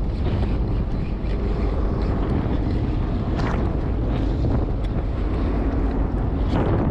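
Steady wind rumbling on the microphone on a boat at sea, with waves washing against the hull.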